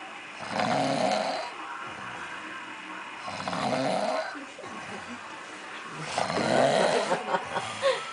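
A man snoring heavily in a deep, drunken sleep: three loud, rough snores roughly three seconds apart, the last one longer and more ragged. Onlookers liken his breathing to being close to sleep apnoea.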